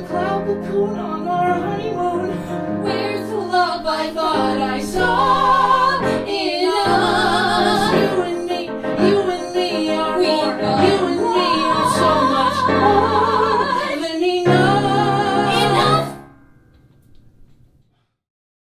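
A female voice singing long held notes with wide vibrato over piano accompaniment, in a musical-theatre song; the music ends about sixteen seconds in and its last chord dies away quickly.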